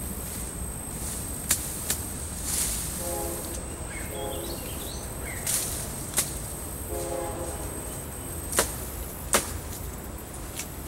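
Machete swung through overgrown brush and weeds: sharp swishing chops, about six of them, coming in rough pairs.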